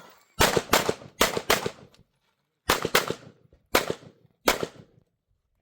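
Eight pistol shots fired on a practical shooting stage: a quick string of four, then a brief pause, a pair, and two more single shots, each with a short echo.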